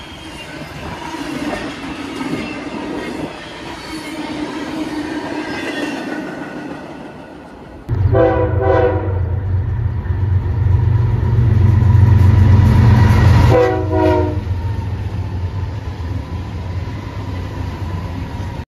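Freight cars rolling past on jointed rail, with a clatter and a faint wheel squeal. About 8 seconds in the sound cuts to a diesel freight locomotive passing close with a deep engine rumble, blowing its horn twice: a blast of about a second, then a shorter one a few seconds later.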